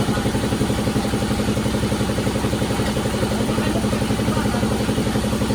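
Engine running steadily at an even speed, with a regular pulsing beat.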